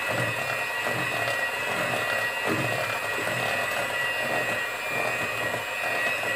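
Electric hand mixer running at a steady speed, its beaters whirring through cake batter in a bowl with a constant motor whine.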